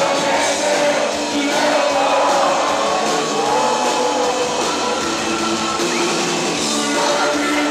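Live band playing a loud Christian rock song, with singing over the full band.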